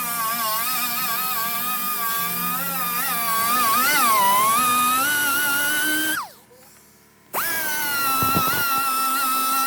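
A high-speed rotary power tool whining as it works the body filler on the hood, its pitch wavering up and down as it is loaded. About six seconds in it is switched off and spins down with a falling whine, then starts again abruptly a second later.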